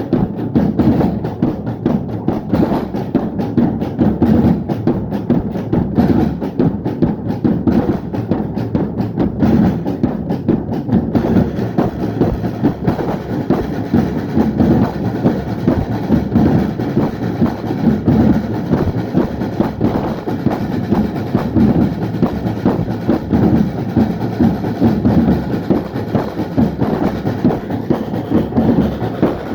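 Drum band of many drummers playing a loud, dense, driving rhythm together, without a break.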